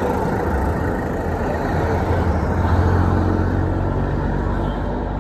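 Road traffic: the engine rumble of passing motor vehicles, swelling about two to three seconds in and easing off near the end.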